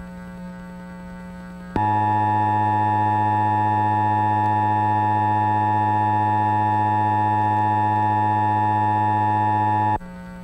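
Emergency Alert System attention signal, the steady dual-tone alarm of a broadcast EAS test, starting about two seconds in over a low hum. It holds unchanged for about eight seconds, then cuts off abruptly.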